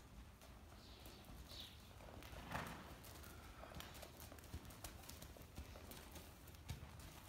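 Faint, even hoofbeats of a horse trotting on soft arena dirt, with one louder, noisier burst about two and a half seconds in.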